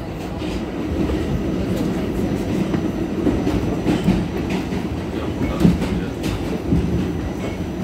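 Ride noise inside an R46 subway car running through a tunnel: a steady rumble of wheels on rail, with irregular clacks as the wheels pass over rail joints, the loudest about three-quarters of the way through.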